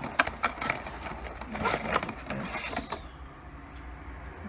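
Handling noise from a small cardboard box being opened and a bundled power cord pulled out: a series of light clicks and knocks, with a brief scratchy rustle about two and a half seconds in. The sound then settles to quieter handling.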